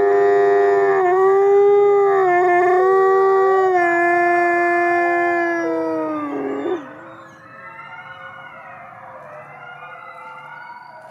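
Canadian/Rocky Mountain gray wolf howling: one long, loud howl that dips slightly in pitch about a second in and ends with a downward slide a little under seven seconds in. Fainter, wavering pitched sounds go on in the background after it stops.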